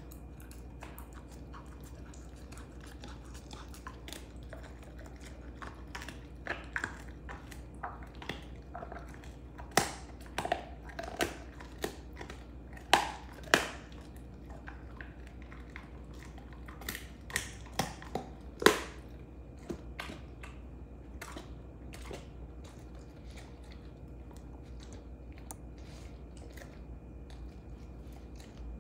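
Belgian Malinois gnawing and crunching a beef rib bone: irregular cracks and crunches, the loudest a little past the middle, thinning to sparse, quieter gnawing over the last several seconds.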